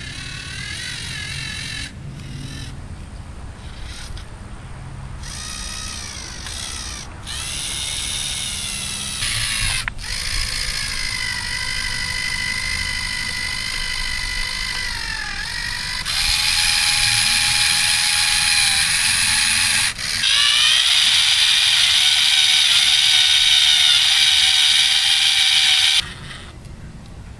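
LEGO Mindstorms NXT servo motors and their gear train running, a high mechanical whine whose pitch wavers and dips as the crane works. It drops out briefly twice, runs louder and steadier in the last third, then cuts off suddenly near the end.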